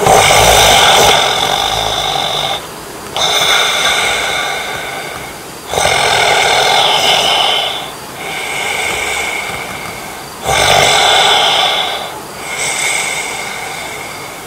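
A man snoring in his sleep: three loud snores about five seconds apart, each followed by a softer breath.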